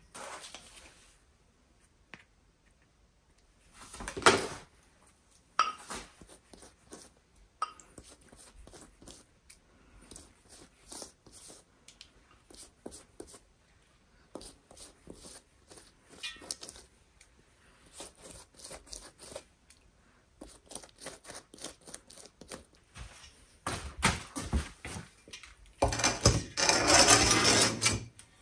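Kitchen handling sounds from food preparation: scattered clicks, taps and scrapes of dishes and utensils. A louder noisy rush with a low hum starts about 26 seconds in and lasts about two seconds.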